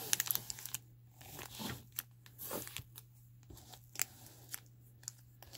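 1987 Fleer baseball wax packs crinkling and clicking as they are handled, set down and squared into stacks on a tabletop: a string of short, sharp ticks and brief rustles at irregular intervals.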